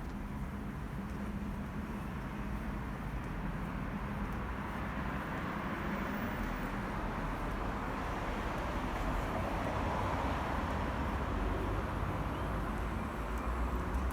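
Steady rumble of city traffic, growing louder in the second half as a vehicle draws near.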